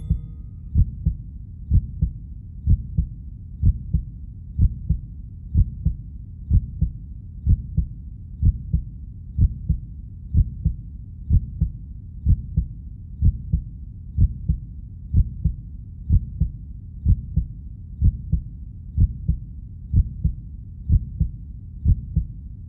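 Heartbeat, a slow, steady double thump about once a second, over a constant low rumble.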